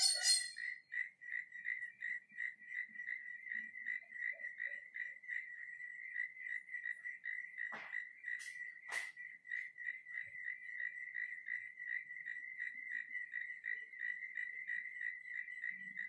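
Cricket chirping steadily at one pitch, three or four chirps a second. A brief high call sounds right at the start, and two short sharp sounds come about eight and nine seconds in.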